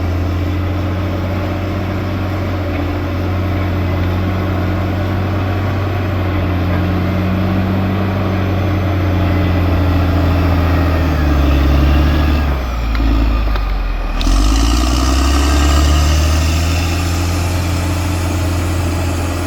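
Caterpillar D6R XL bulldozer's diesel engine running steadily under work. About two-thirds of the way through, the engine note drops and then picks back up.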